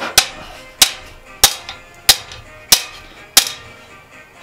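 Blacksmith's hand hammer striking steel on an anvil: six evenly spaced blows, about one every two-thirds of a second, each ringing briefly.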